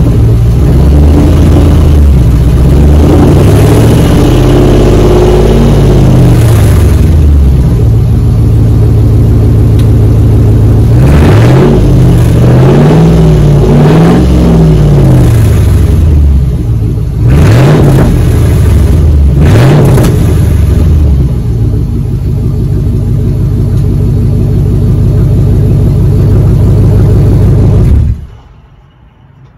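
Loud 5.7-litre Hemi V8 of a 2004 Dodge Ram 1500, running through a straight pipe with the muffler and resonator deleted. It is revved several times, its pitch rising and falling, then settles to a steady idle about two-thirds of the way in. The sound cuts off sharply near the end.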